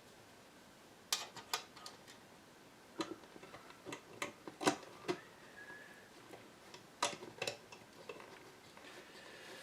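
Scattered sharp clicks and taps, about eight in irregular pairs and clusters, from small parts and hand tools being handled during bench work on an old radio chassis.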